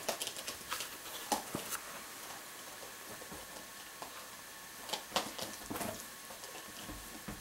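A dog scuffling on a fabric sofa while worrying a small rubber ball: quick scrabbling, rustling and soft knocks, in a burst during the first two seconds and again around five to six seconds in.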